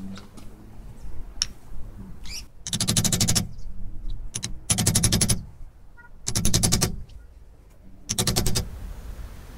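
Hand file rasping across a metal plate clamped in a vise: four strokes about two seconds apart, each a rapid chatter of the file's teeth on the metal. A few light clicks of handling come before the first stroke.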